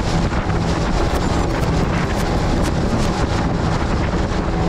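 Mercury 25 hp outboard motor running steadily as the skiff runs across the lake, mixed with wind buffeting the microphone and water splashing along the hull.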